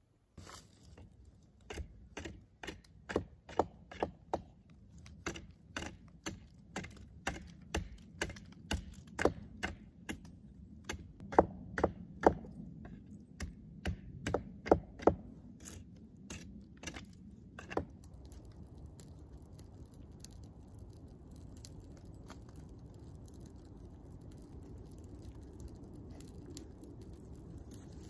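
Hatchet blows striking a log, a run of sharp wooden knocks about two a second and uneven in strength. They stop about two-thirds of the way through, leaving a steady low background rush.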